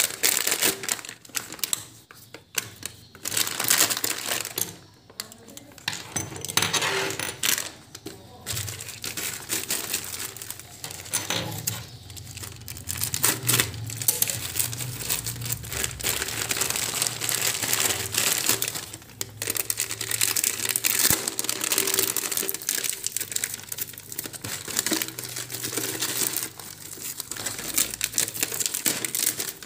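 Plastic packaging bags crinkling and rustling as hands unwrap and crumple them, in irregular crackling bursts that come and go.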